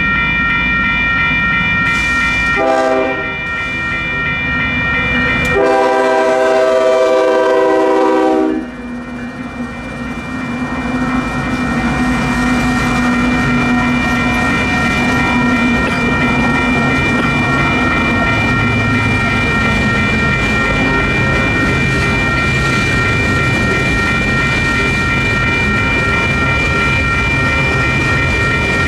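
Union Pacific freight locomotive horn sounding a short blast and then a long blast of about three seconds, over the steady ringing of WCH electronic railroad crossing bells. The locomotives and freight cars then rumble past with wheels clacking over the rails.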